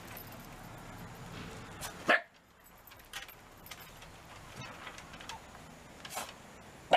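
Shiba Inu barking in short, single barks: a loud one about two seconds in, fainter ones near three and six seconds, and another loud one at the end.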